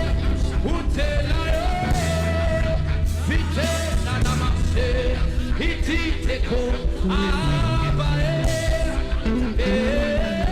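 Live worship music: a band with bass and drums keeping a steady beat under sung melody.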